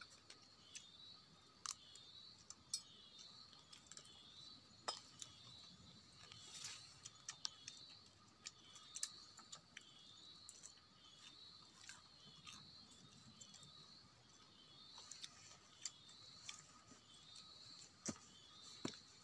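Faint forest ambience: a high chirp from a wild creature repeats a little more than once a second over a faint steady tone, with scattered sharp clicks and taps standing out above it.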